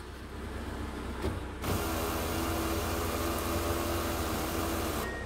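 A 1994 Honda CRX VTi's electric roof mechanism running as it lowers the hard-top roof panel back onto the car. The motor starts about a second and a half in, runs steadily with a held hum, and cuts off suddenly near the end.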